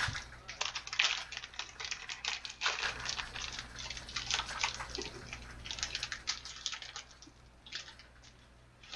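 Clear plastic wrapper on a pack of football trading cards crinkling as hands pull it open, a dense irregular run of crackles that thins out after about seven seconds.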